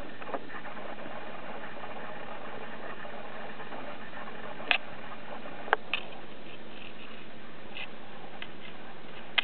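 Steady hiss of background recording noise, with a few short sharp clicks about halfway through and near the end.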